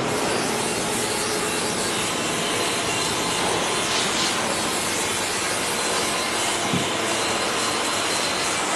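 MF-127 circular saw blade grinding machine running with a steady, even noise.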